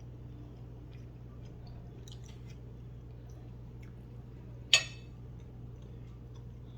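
Faint chewing and small wet mouth clicks as a man eats, over a steady low hum. About three-quarters of the way through comes one sharp, loud clack.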